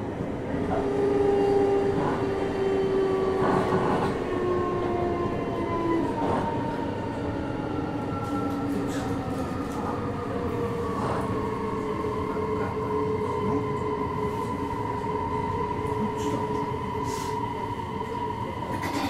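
JR Hokkaido 733 series electric train heard from inside a car while running. Its motors whine in several tones that fall slowly in pitch over the first several seconds and then hold steady, over a constant rumble of wheels on rail, with a few sharp knocks from the track.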